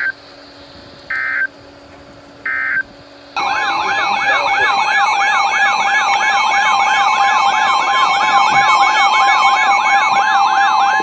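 Three short electronic data-burst beeps about a second apart, the end-of-message tones of an Emergency Alert System broadcast. From about three seconds in, a loud electronic alert siren starts and warbles up and down two to three times a second over a steady tone.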